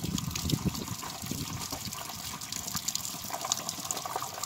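Gasoline gushing from the fuel tank drain of a Caterpillar 955L loader and splashing over a plastic container onto the machine's steel frame: the drain is running uncontrolled and spilling fuel everywhere.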